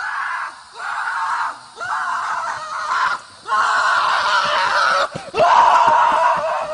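A run of five drawn-out, high-pitched screams, each about a second long, with short breaks between them.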